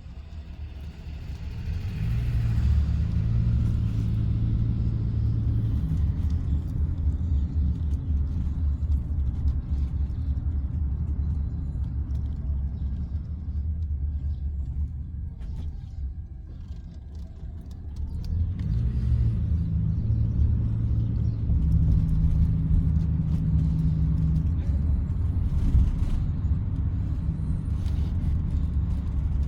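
Car ride heard from inside the cabin: low engine and road rumble, picking up about two seconds in as the car gets moving, easing off for a few seconds past the middle as it slows, then rising again as it drives on.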